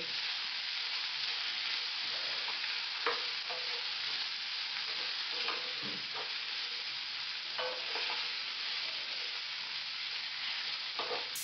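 Vegetables and spices stir-frying in a pan, with a steady sizzle. A spatula stirs through them, scraping and knocking against the pan a handful of times.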